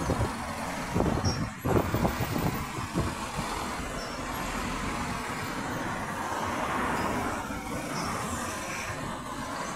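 Town road traffic: cars driving past on the street, a steady hiss of tyres and engines that swells as a car passes close about two-thirds of the way through. Irregular low thumps in the first three seconds.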